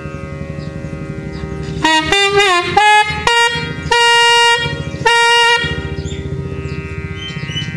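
Nagaswaram playing an opening phrase of raga Nalinakanthi over a steady drone. The double-reed pipe comes in about two seconds in with quick gliding notes, holds two long notes, and stops near the end while the drone carries on.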